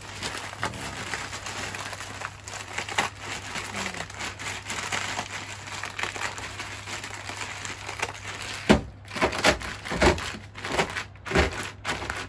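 Dry tantanmen cup noodles being crushed by hand inside a plastic zip-top bag: the plastic crinkles and the brittle noodles crunch continuously. From about nine seconds in there are louder, irregular crunches and thumps as the bag is pressed harder.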